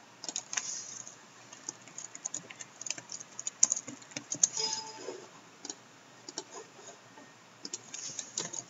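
Typing on a computer keyboard: a quick run of key clicks, a lull of about two seconds past the middle, then a few more keystrokes near the end.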